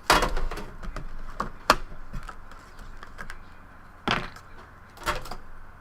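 Trading cards being handled at a table: a scattering of sharp taps and clicks as cards are flipped through and set down.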